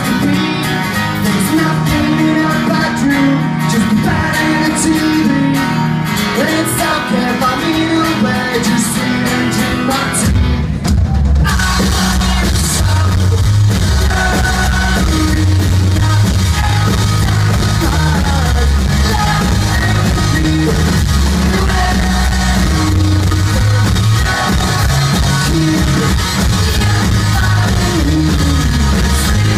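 Live rock band playing with guitar, singing, bass and drums. About ten seconds in, after a brief break, the full band comes in and the sound fills out with heavy low end.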